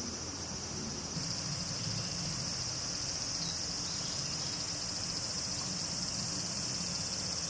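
Steady, high-pitched drone of a summer insect chorus, with a second, higher-pitched layer joining about a second in.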